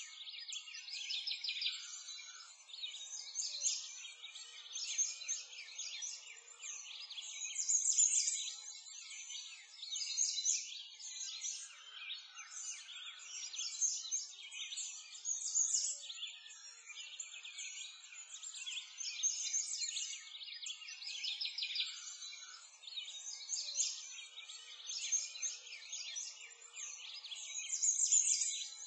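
A dense chorus of many small songbirds chirping and twittering without a break, high-pitched, swelling and easing every couple of seconds.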